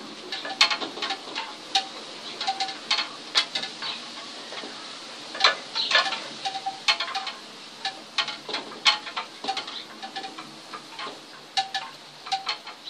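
Wind chime clinking irregularly: light sharp strikes, sometimes several a second and sometimes spaced apart, each with a short ring.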